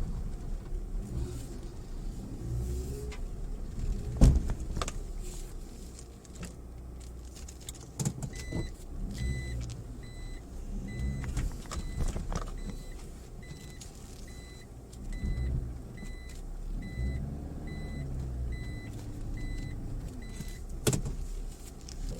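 Small 4x4's engine pulling at low speed on a rough forest track, its pitch rising and falling, with sharp body knocks and clunks from bumps. From about eight seconds in, an in-cabin beeper sounds about every two-thirds of a second for some twelve seconds, the reverse-gear warning as the vehicle backs up.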